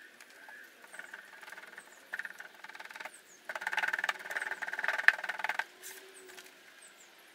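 Foundry moulding sand being packed into a wooden flask with a wooden hand rammer: a gritty crunching pounding, lighter at first and heaviest for about two seconds in the middle, then stopping.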